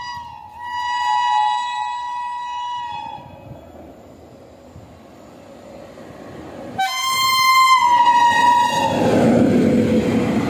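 Passenger train's locomotive horn: a long blast that fades out about three seconds in, then a low rumble as the train approaches. About seven seconds in the horn sounds again, its pitch dropping as the locomotive passes, and the Kalinga Utkal Express's coaches follow with a rising rumble and rattle of wheels on rail as they rush past at speed.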